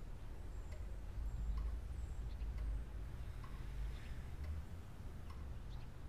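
A clock ticking steadily, over a low rumble of room tone.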